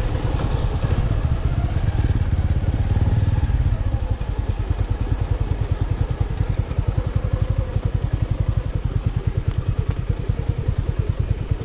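200 cc single-cylinder motorcycle engine running at low speed on a rough trail. It pulls harder and steadier for about the first four seconds, then settles into an even, rapid low putter.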